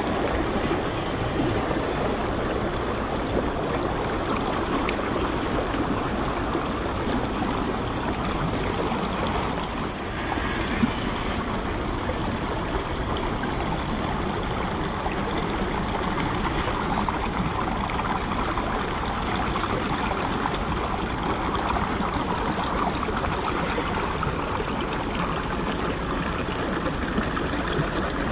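Shallow rocky creek water rushing and splashing over stones close by, a steady flowing noise with a brief dip about ten seconds in.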